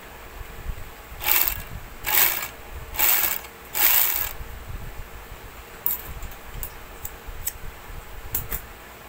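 Portable edging (overlock) machine run in four short bursts of under half a second each, about one a second, a test run just after a new needle has been fitted. A few light clicks follow.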